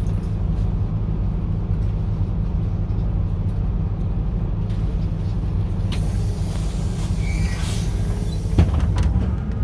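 A vehicle engine running steadily with a low rumble. About six seconds in comes a hiss lasting a couple of seconds, then a sharp knock.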